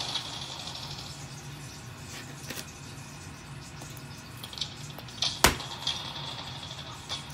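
Kitchen knife cutting through crispy deep-fried pork belly on a plastic cutting board: scraping crunches from the crackling skin, with a few knocks of the blade on the board, the sharpest about five and a half seconds in.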